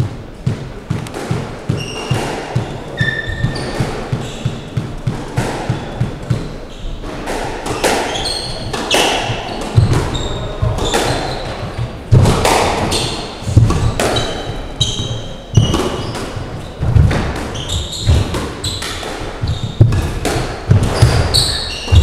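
Squash rally: the ball cracks off rackets and the walls in sharp knocks about once a second, with shoes squeaking and footsteps on the sprung wooden court floor. The first several seconds hold a quicker, lighter run of thuds before the play grows louder from about eight seconds in.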